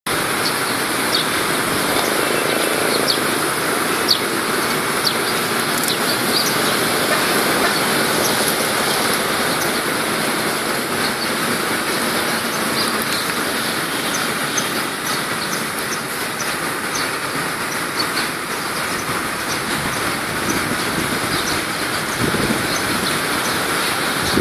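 Steady wash of street traffic noise, with many short high ticks scattered through it and a lower swell near the end.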